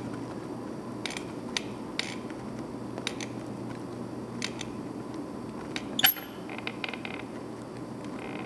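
Scattered light clicks and creaks from a hand-held silicone cartridge dispenser being worked while silicone is woven over plastic straws, with one sharper click about six seconds in. A steady low hum runs underneath.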